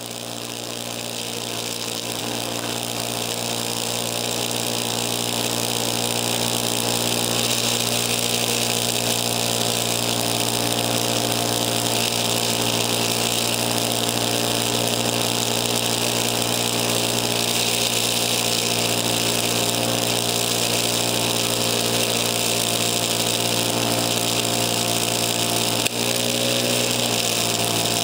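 Craftsman snowblower engine running steadily under load while the auger throws snow out of the chute, with a steady hiss over the engine note. The sound swells up over the first few seconds, and there is a single sharp click near the end.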